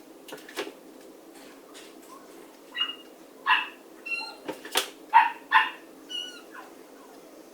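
A dog giving a string of short, high-pitched yips and barks, loudest a little past the middle.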